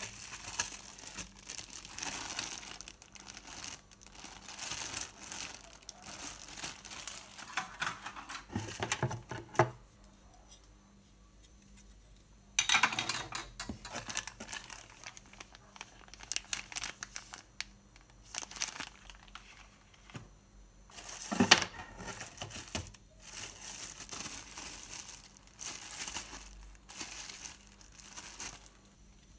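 Clear plastic bags crinkling and rustling as bagged plastic body parts on sprues are handled and lifted out of a cardboard box. The rustling comes in irregular spells, with a couple of louder bursts near the middle and a quieter pause between them.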